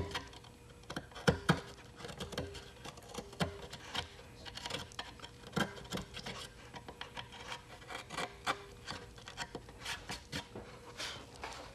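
Hobby knife blade cutting and scraping through wood, squaring a row of drilled holes into a slot in a model airplane's fuselage side: a run of irregular scratchy scrapes and small clicks.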